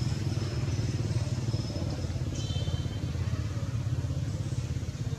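Steady low rumble of an engine running at idle, pulsing quickly and evenly, with a short high chirp about two and a half seconds in.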